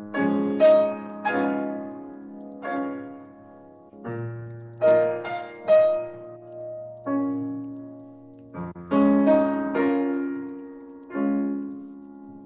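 Upright piano played solo in a slow, lyrical piece: chords and melody notes struck one after another and left to ring and fade, heard over a Zoom video call.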